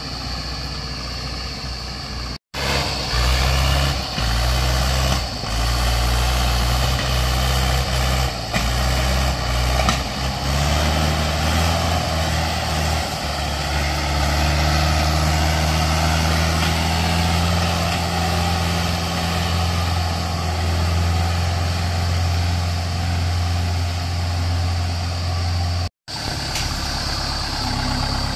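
Diesel farm tractor engine running steadily under load as it pulls a trailer heavily loaded with logs. The sound drops out briefly twice, once near the start and once near the end.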